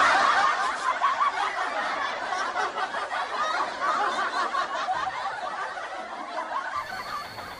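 Many people laughing together, a canned laugh track, that fades out steadily over several seconds.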